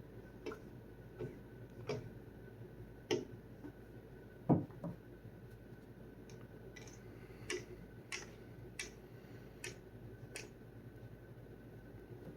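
Irregular soft clicks and ticks, unevenly spaced, with one louder knock about four and a half seconds in.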